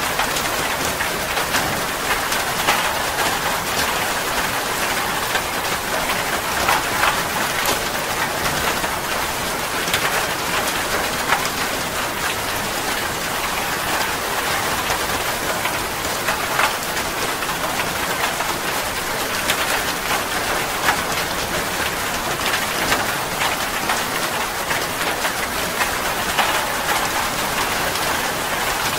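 Steady, fairly heavy rain, with many separate close drop hits ticking through the even hiss.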